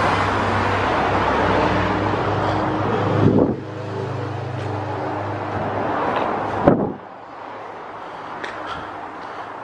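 A road vehicle running steadily, its engine hum under broad road noise. The sound drops sharply about three and a half seconds in, carries on quieter, and falls away again after a short sharp knock near seven seconds in.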